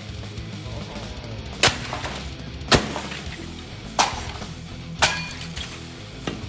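A printer being smashed: five sharp blows, about one a second, each cracking into its casing and parts, over background guitar music.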